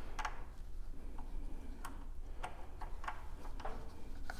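Faint metallic clicks, roughly every half second, from a 4 mm Allen key working the side-to-side adjustment screw of a Simonswerk Tectus concealed door hinge.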